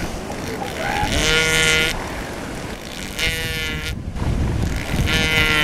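Female northern elephant seal calling three times, each call a drawn-out bawl of about a second, roughly two seconds apart. The calls are a mother's threat call, warning a nearby bull to keep away from her pup.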